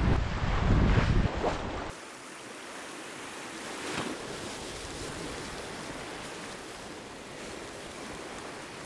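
Strong wind buffeting the microphone with a loud low rumble for about two seconds, dropping away to a steady wash of sea surf breaking over shoreline boulders.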